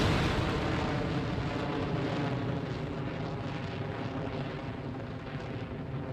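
Rocket launch roar: a sudden loud onset, then a steady deep rumble that slowly fades.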